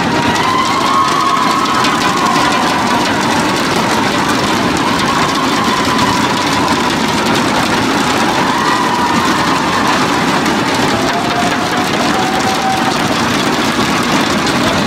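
Large crowd beating inflatable thundersticks together in a dense, unbroken clatter, with cheering voices over it.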